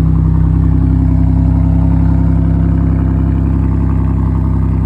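Pontiac's tuned engine idling steadily just after a cold start, with the exhaust still running through its catalytic converters.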